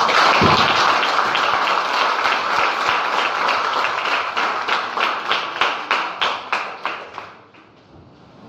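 Audience applauding: dense clapping that thins to scattered separate claps and dies away about seven seconds in.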